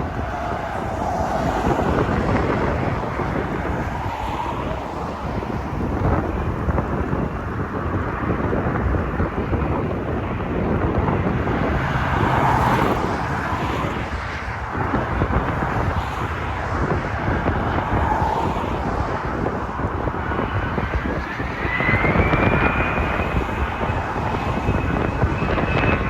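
Strong wind buffeting the microphone over the rumble of jet aircraft. About twenty seconds in, a jet engine's whine rises and then holds steady.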